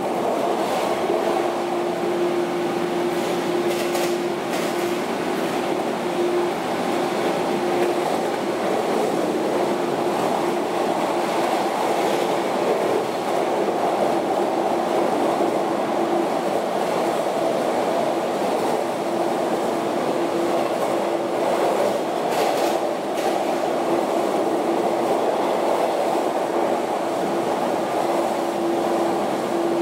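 Inside a JR 115 series electric train's motor car running at steady speed: the even hum and whine of its MT54 traction motors and gearing over the rumble of wheels on rail, the whine holding one pitch, with a few rail-joint clicks.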